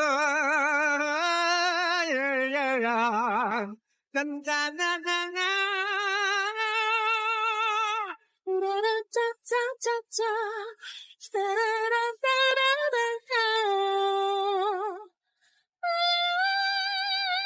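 A high singing voice sings wordless vocal runs with wide vibrato, unaccompanied, in several phrases broken by brief pauses. The last phrase is a long held note.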